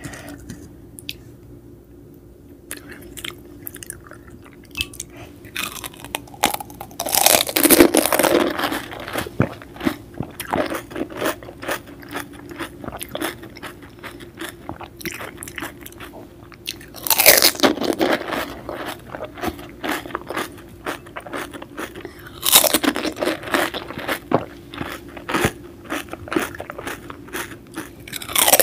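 Close-miked crunching and chewing of pani puri: crisp hollow puris bitten whole, with several loud crunching bites between stretches of crackly chewing. The first few seconds are quieter.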